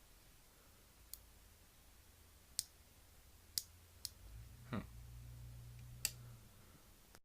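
Sharp clicks of a lamp push-button switch, rewired as a computer power button, pressed several times. A low hum comes on about four seconds in and stops about two seconds later.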